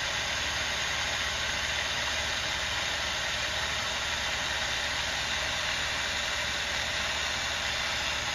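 Steady hiss with a low rumble from the gas flame that heats a flute maker's burning rod, running evenly without a break.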